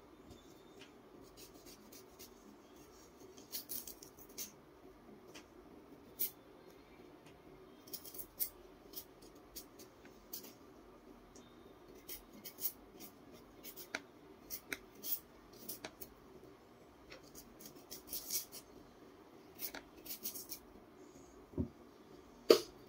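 Jicama skin being peeled off by hand: irregular short scratchy crackles and snaps as the papery peel tears away, with one sharp click near the end.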